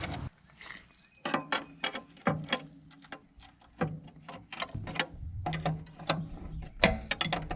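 Size 60 steel roller chain clinking and rattling as it is fed around a sprocket on a combine, a run of irregular sharp metal clicks and clanks.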